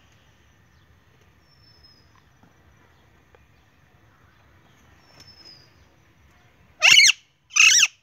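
A green parakeet gives two loud, harsh calls in quick succession near the end, each under half a second long. Earlier, faint short high whistles from another bird sound in the background.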